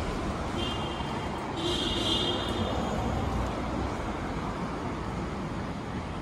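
Steady street traffic noise from passing road vehicles. Two short high-pitched tones sound early on, about half a second and about a second and a half in.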